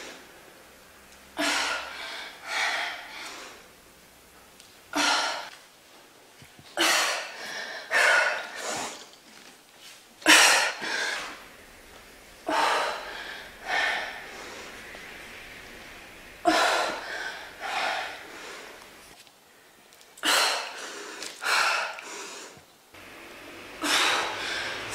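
A woman breathing hard, with sharp, hissy exhales and gasping inhales every second or two: the panting of heavy exertion in the middle of a set of push-ups.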